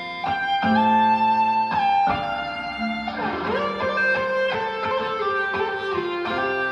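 Plucked guitar music played back over an Onkyo D-series speaker set driven by an Onkyo TX-SA602 AV amplifier, note by note, with a sliding note about three seconds in.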